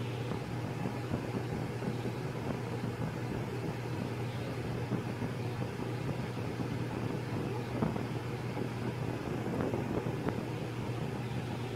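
Cat purring close to the microphone: a steady low rumble throughout, with a few light rustles of fur and bedding near the end.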